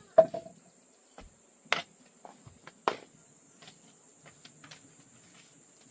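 Insects, likely crickets, chirring in a steady high tone, broken by a few sharp knocks: a loud one right at the start and two more about a second apart around the middle.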